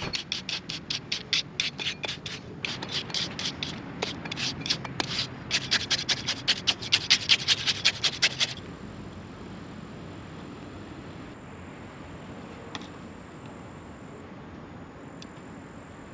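Small metal garden shovel scraping across fresh wet concrete in quick back-and-forth strokes, several a second, as the top of the footing is smoothed flat. The strokes stop about halfway through.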